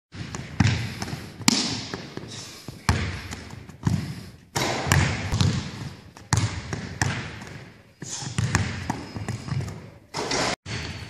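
Basketball bouncing on a hardwood court, sharp bangs about once a second, each echoing through a large gym hall.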